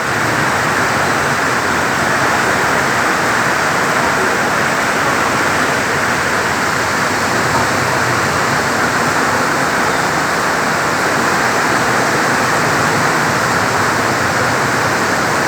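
Rain falling steadily, a loud, even hiss with no breaks.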